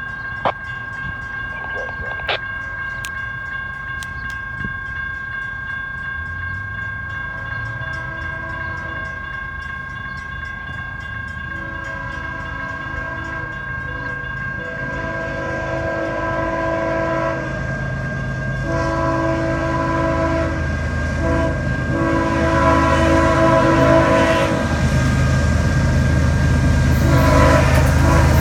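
GE ES44AH diesel-electric locomotive approaching at the head of a freight train, sounding its multi-chime horn in a series of blasts. The horn starts faint and grows louder from about halfway through, over a rising low engine rumble.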